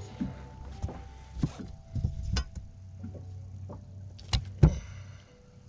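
Irregular knocks and clatters on a fiberglass bass boat's deck as a freshly caught bass is landed and handled, with two sharp knocks close together about four and a half seconds in, over a low steady hum.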